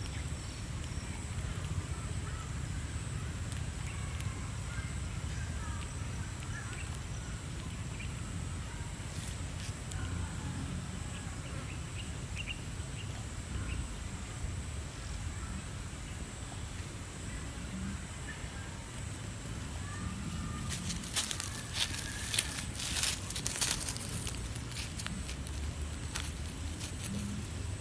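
Outdoor ambience: a steady low rumble, like wind on the microphone, with faint scattered chirps, and a short burst of sharp clicks and crackles about three-quarters of the way through.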